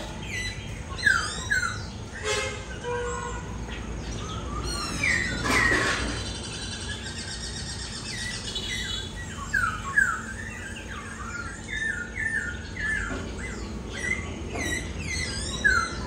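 Caged laughingthrush (khướu) singing: a run of short, clear whistled notes that slide down in pitch, with a quick trill about halfway through.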